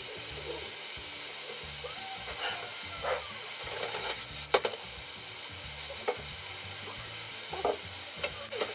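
Stir-fried noodles with bean sprouts and garlic chives sizzling steadily in a frying pan over high heat while being tossed with chopsticks, with scattered clicks of the chopsticks against the pan and one sharper knock about four and a half seconds in.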